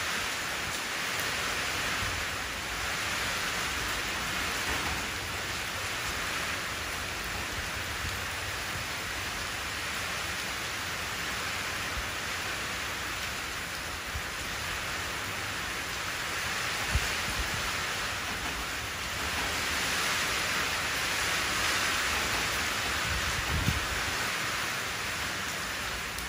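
Steady rain falling into a shallow puddle on concrete: a continuous hiss of drops splashing on the water surface. Two or three brief low knocks stand out in the second half.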